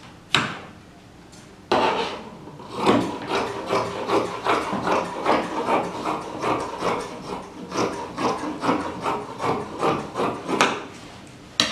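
Fabric shears cutting along a marked line through folded Ankara wax-print fabric on a cutting table. A click comes just after the start, then a steady run of crisp snips, roughly two a second, begins about two seconds in.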